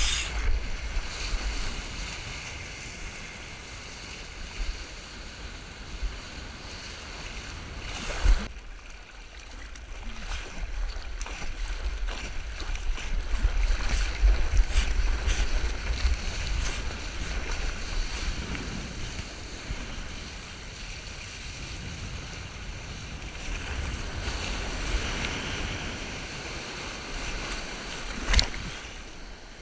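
Water rushing and spraying around a surfboard riding a small breaking wave, with wind rumbling on the microphone. Two sharp hits stand out, about eight seconds in and near the end.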